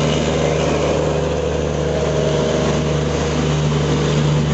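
WDP-4D diesel-electric locomotive's EMD 16-cylinder two-stroke engine running steadily, a constant drone of several pitched tones with no change in pitch or loudness.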